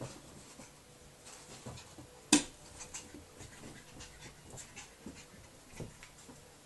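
Staffordshire Bull Terrier mother and puppy on a shaggy rug: light dog panting with scattered soft scuffs of paws as the puppy scampers in and jumps at her. One sharp click about two seconds in is the loudest sound.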